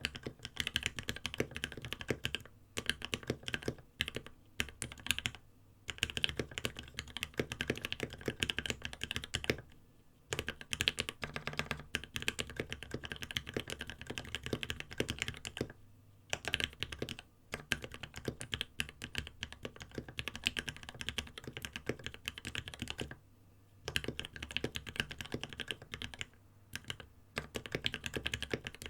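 Typing on a Space65 custom mechanical keyboard with lubed H1 switches in an aluminium plate, capped with EnjoyPBT thick PBT keycaps. Fast runs of keystrokes with short pauses between bursts.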